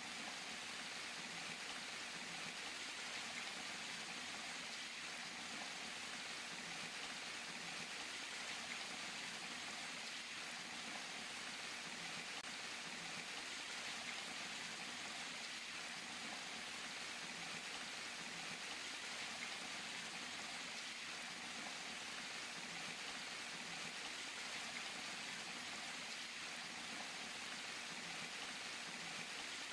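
Falling water splashing in a steady, even rush with no change in level.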